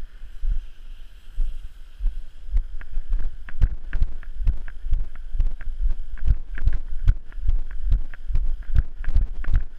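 Walking footsteps jolting a body-worn camera: low thuds about twice a second, with wind on the microphone.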